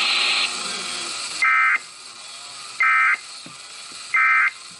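Emergency Alert System End-of-Message data tones: three identical short screeching digital bursts, about a second and a half apart, marking the end of the alert. A loud steady hiss cuts off about half a second in, before the first burst.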